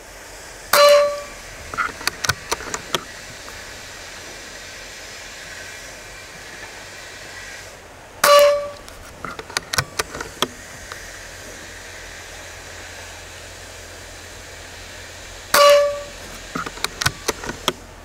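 Precihole PX120 Minotaur PCP bullpup air rifle firing three shots about seven and a half seconds apart. Each is a sharp crack with a short ring, followed within a second or two by a quick run of clicks as the action is cycled for the next pellet. A steady hiss of wind runs underneath.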